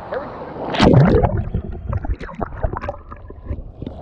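Ocean wave washing over a camera held at the water's surface: a loud rush of water about a second in, then water splashing and sloshing against the lens.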